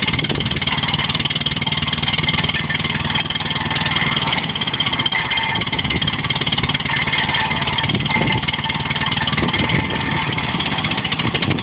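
A stationary square baler runs steadily, together with the engine that drives it, making a continuous mechanical running noise over a low engine hum.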